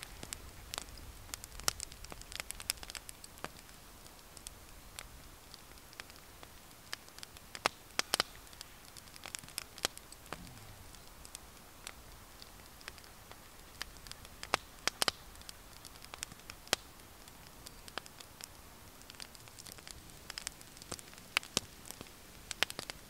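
Small wood fire crackling in a camp stove, with irregular sharp snaps and pops that come in scattered clusters.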